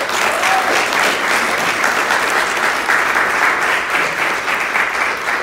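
Audience applauding: a roomful of people clapping, steady and dense.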